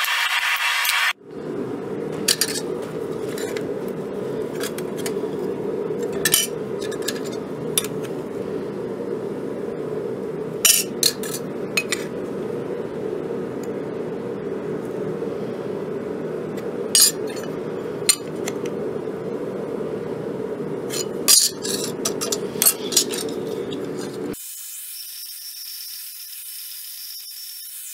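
Pieces of thin copper sheet clinking and scraping against a steel blade and each other as they are handled, with a few sharp clinks scattered over a steady low hum. Near the end this gives way to a quieter steady hiss with a faint high tone.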